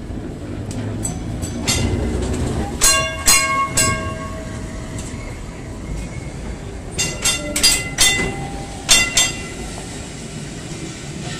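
Vintage electric tramcar running close by: a steady low rumble from the wheels on the rails, broken by sharp metallic clacks that ring briefly. The clacks come in short groups, several bunched around 3 to 4 seconds in and again between 7 and 9 seconds.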